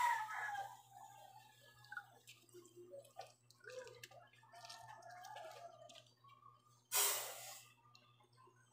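Liquid dripping into a container in faint scattered drips, with one short, louder rush of liquid about seven seconds in.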